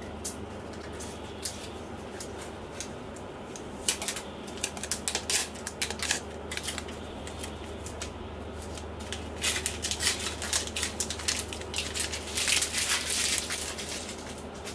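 Crisp crinkling and tapping of packaging as the wrapped MacBook Pro power adapter is lifted out of its cardboard tray and handled. It comes in two clusters, about four to seven seconds in and again from about nine to thirteen seconds, over a steady low hum.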